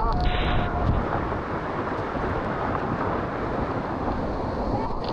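Steady rushing noise outdoors, with wind buffeting the microphone.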